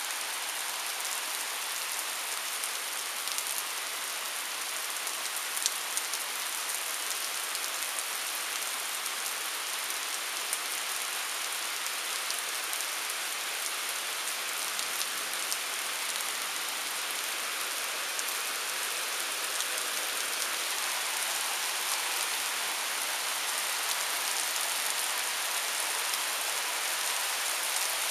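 Heavy thunderstorm rain pouring steadily on pavement and lawn: an even hiss with scattered sharper ticks of drops striking.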